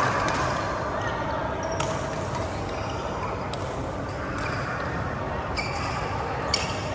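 Badminton rally in a hall: rackets striking the shuttlecock in sharp cracks, irregularly about a second apart, with shoes squeaking on the court floor near the end and voices murmuring in the background.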